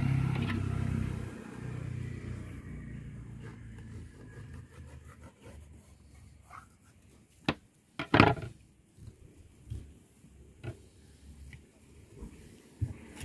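A motor vehicle's engine hums and fades out over the first couple of seconds. After that come a few short, sharp knocks and clicks from the fish and hands working on the cutting table, the loudest about eight seconds in.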